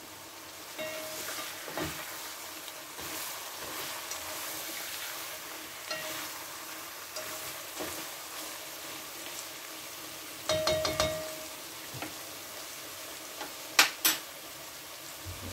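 Beef, onion and carrots sizzling as they fry in a stone-coated kazan, stirred with a spatula that scrapes and clinks against the pot now and then: the meat-and-vegetable base for plov. Two sharp knocks near the end.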